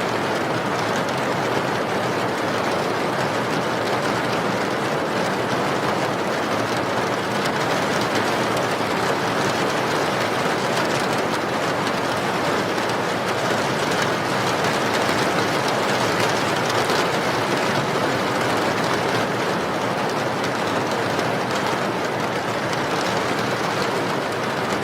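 Steady, unbroken rain noise, an even hiss with no separate drops or pauses, as in a continuous rain recording for sleep.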